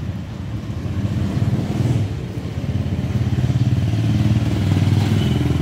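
Motorcycle engine running, growing louder in the second half.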